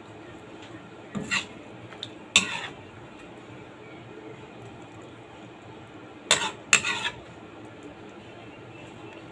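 Cutlery clinking and scraping against a dinner plate in four short bursts: one about a second in, one about two and a half seconds in, and a close pair around six and a half seconds. A steady low hum runs underneath.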